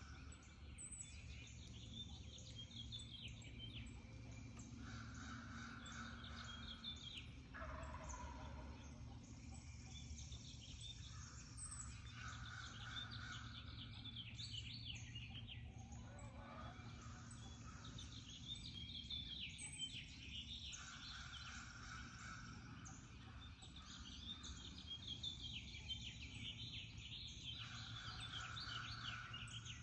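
Wild turkey gobblers gobbling repeatedly, a call every few seconds, with songbirds chirping and singing throughout.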